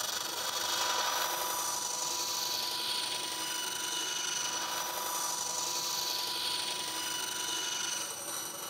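Bandsaw cutting a thin sheet of wood: a steady whine from the running saw mixed with the noise of the blade going through the wood. It starts suddenly and eases a little near the end.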